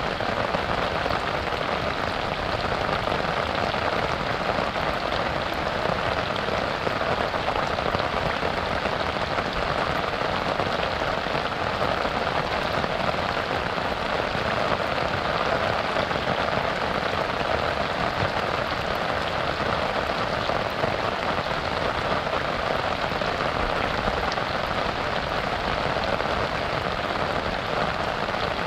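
Steady rain falling, an even, unbroken hiss of drops that neither builds nor eases.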